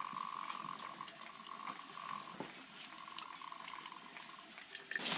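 Running water splashing, with a steady high tone over it that stops near the end.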